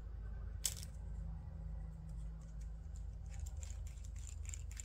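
Small metal frame hardware (aluminium standoffs and screws) clicking and rattling as it is handled and fitted: one sharp click under a second in, then a run of quick light ticks from about three seconds on, over a low steady hum.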